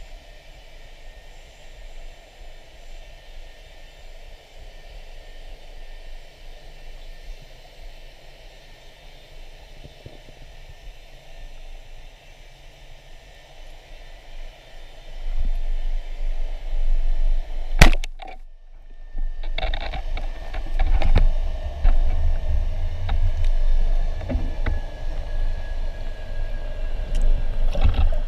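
Muffled underwater hiss heard through an action-camera housing, growing into a louder low rumble; a little past halfway a single sharp crack, a wooden band speargun firing, then louder irregular rumbling and knocks.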